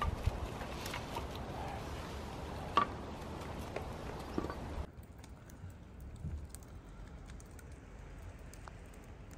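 Split firewood being set onto a campfire in a metal fire ring: scattered wooden knocks and clacks, the sharpest about three seconds in. After about five seconds these stop and only a quieter outdoor background with a few faint ticks remains.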